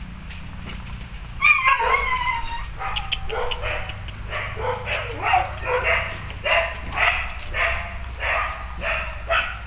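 Small dog barking: a long, high whining yelp, then a run of short, high-pitched yaps at about two a second.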